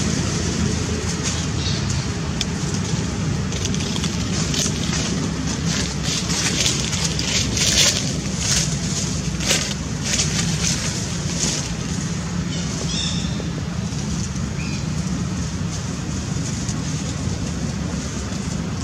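Steady wind noise rumbling on the microphone, with short scratchy rustles of dry fallen leaves several times in the middle.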